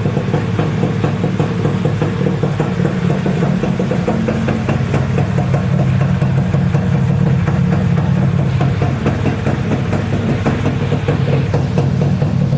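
Modenas Dinamik 120 motorcycle's single-cylinder four-stroke engine idling steadily as it is warmed up after standing unused for a long time.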